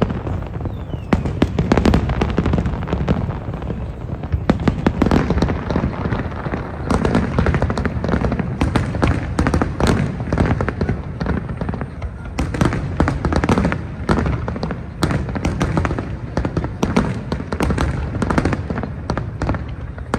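Fireworks display going off in a dense, continuous barrage of booms and crackles with a deep rumble beneath.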